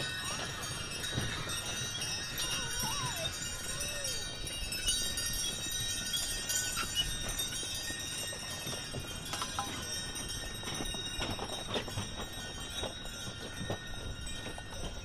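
Harness bells on a team of draft horses jingling steadily as the horses pull a cutter sleigh over packed snow, with their hoofbeats knocking irregularly underneath.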